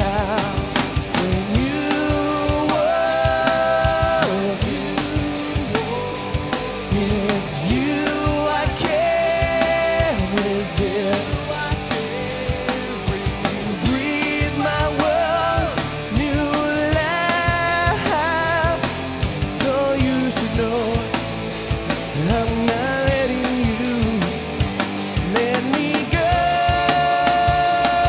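Live rock band playing: a male lead vocal sung over electric guitars, bass guitar and a drum kit keeping a steady beat.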